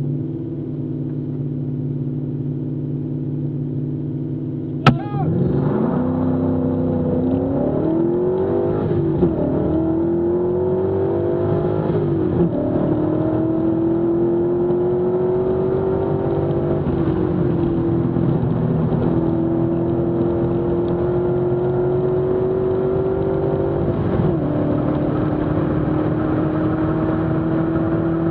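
TVR Chimaera's Rover V8, heard from inside the cabin, held at steady revs on the start line, then a sharp bang about five seconds in as it launches. It then accelerates hard through the gears, its pitch climbing and dropping back at each upshift.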